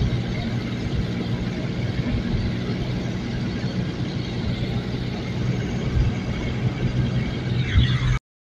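Tractor diesel engine running steadily under way, heard from on board with a rush of wind; it cuts off abruptly just before the end.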